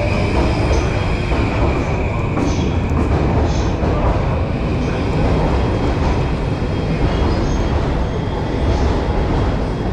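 Train running at a station: a steady, loud low rumble. A high steady tone fades away over the first two or three seconds.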